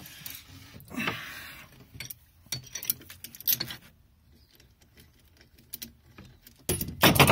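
Metal clicks and clinks of a wrench turning a bolt threaded into the output shaft coupling of a Velvet Drive 71C marine transmission, working the coupling off the shaft. There is a scraping rasp about a second in and a louder clatter near the end.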